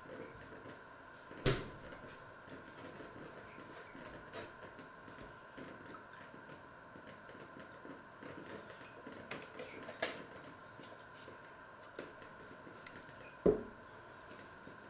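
Three sharp knocks over a steady faint hum: one about a second and a half in, one at ten seconds, and a heavier one near the end.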